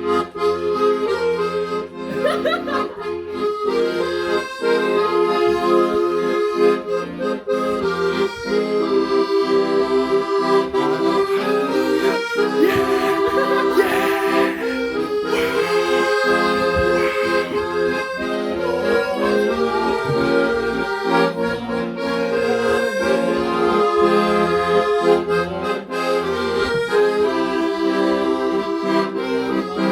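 Accordion playing a traditional-style folk tune, a melody of held notes moving step by step over a bass line of separate low notes.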